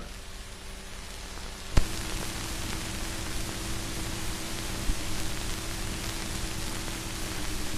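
Steady hiss and faint hum of a 1945 film's optical soundtrack. A sharp click comes about two seconds in, and the hiss is a little louder after it.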